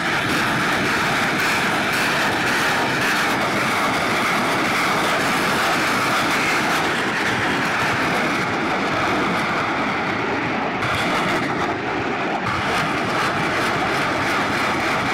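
BM-21 Grad multiple rocket launchers firing a salvo: a loud, continuous roar of rockets leaving the tubes one after another, crackling throughout.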